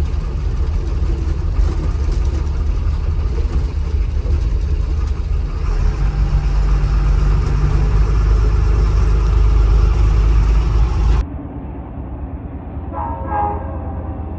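Deep, heavy vehicle rumble that grows louder partway through and then cuts off abruptly, followed by a quieter stretch with a brief horn-like tone near the end.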